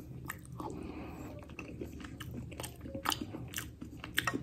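A person chewing a mouthful of soft, shredded ration beef: faint wet mouth clicks and smacks at irregular intervals.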